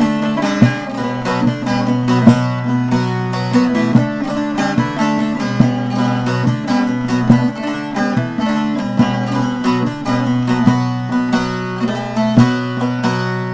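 Short-neck bağlama with a mulberry staved bowl and spruce top being played: a quick picked folk melody over steadily ringing lower strings.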